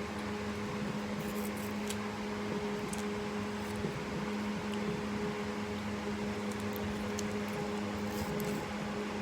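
Steady machine hum, with a constant low tone over an even hiss and a few faint ticks.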